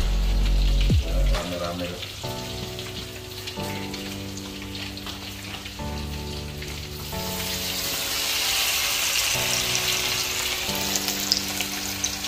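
Hot oil sizzling as food fries in woks, the sizzle swelling louder about halfway through, under background music with held notes.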